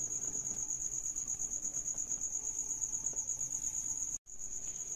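A cricket trilling: one steady, high-pitched, rapidly pulsing chirp that carries on without a break, cut out for a moment about four seconds in.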